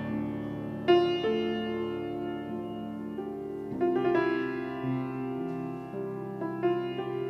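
Piano playing a slow, quiet introduction of held chords, with new chords struck about a second in, near four seconds in and again near the end.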